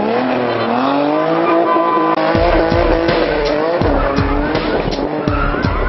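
Car engine revving up and held at high revs, its pitch wavering. About two seconds in, a heavy thumping bass beat comes in under it.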